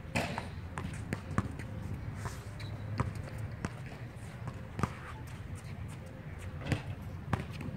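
A basketball dribbled on an outdoor hard court: a handful of sharp single bounces, roughly one every second or two.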